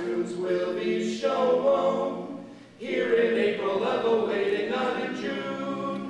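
Vocal quartet singing a cappella in close harmony, with a brief break about two and a half seconds in before the next phrase.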